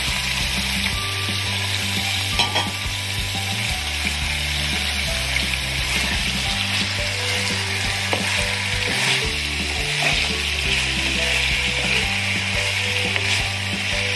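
Fried chicken pieces and pineapple chunks sizzling steadily in a frying pan, stirred with a wooden spatula.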